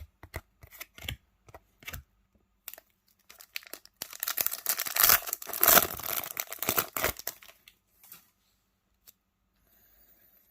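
A foil trading-card pack wrapper being torn open and crinkled, in a dense crackling spell from about four seconds in to about seven and a half seconds in. A few light clicks of cards being handled come before it.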